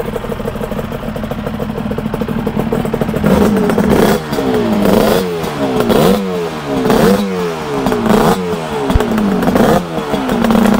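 Racing motorcycle engine idling steadily, then, from about three seconds in, revved in a string of quick throttle blips, about one a second, each rising and falling in pitch.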